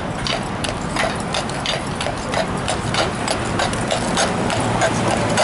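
Carriage horse's shod hooves clip-clopping on street pavement as it walks, a few irregular steps a second.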